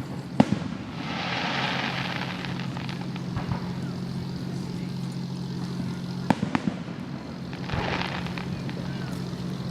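Fireworks going off: a sharp bang about half a second in and two more close together around six seconds, with spells of hissing crackle after them. A steady low hum runs underneath.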